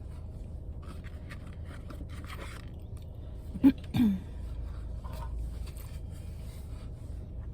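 A person eating with soft chewing and mouth sounds and light scraping, over a steady low hum. Two brief louder mouth sounds come close together about halfway through.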